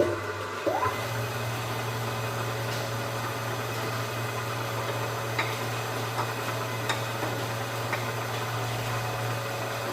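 Bridgeport milling machine running steadily with a low hum, taking a deeper cut. A short rising whine comes about a second in, and a few faint ticks follow later.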